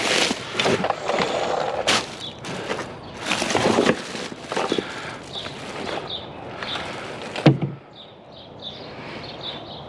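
Rustling and clattering of scrap items being handled, with scattered knocks, then one heavy thump about seven and a half seconds in, after which it is quieter.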